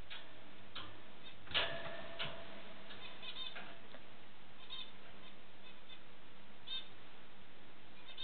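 A pet rabbit hopping and dashing about in the joyful leaps called popcorning, its paws and claws landing on the floor as scattered light knocks and clicks. The loudest knock is about one and a half seconds in, with little runs of clicks after it, over a steady hiss.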